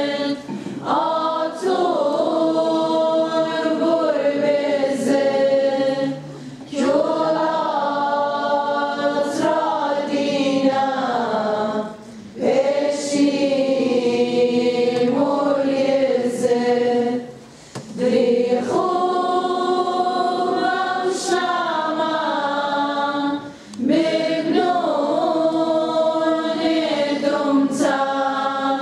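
Choir of many voices singing a liturgical chant unaccompanied, in long phrases broken by short pauses about every five or six seconds.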